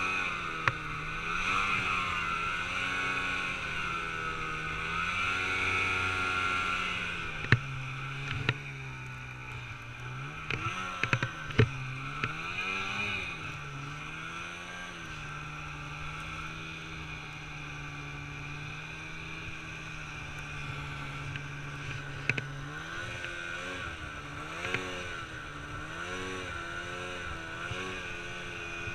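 Snowmobile engine running while the sled pulls through deep snow, its pitch rising and falling with the throttle and holding steadier for a stretch in the middle. There are a few sharp knocks about seven to twelve seconds in and one more near the end.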